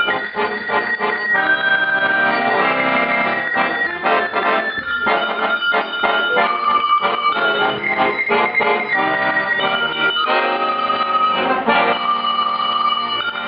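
Accordion playing a tune together with tuned cowbells, held accordion chords under a quick run of struck notes.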